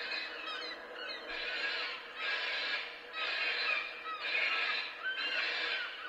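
Bird-scaring PA loudspeakers playing a deterrent call against seagulls, in short bursts of under a second that repeat about once a second.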